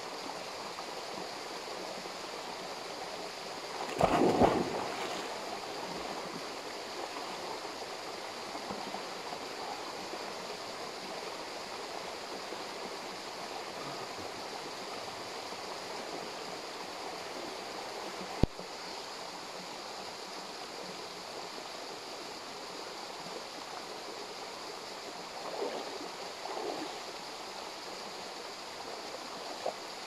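Steady rush of a waterfall stream, with a loud splash about four seconds in as a person plunges into the pool, and a single sharp click a little past the middle.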